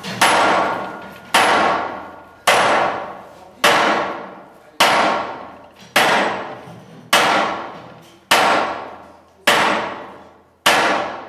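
Sledgehammer blows on steel over an anvil in a steady rhythm, ten strikes a little more than a second apart, each ringing out and fading before the next. This is hand forging (Kümpeln, dishing and flanging) of a steel firebox tube plate.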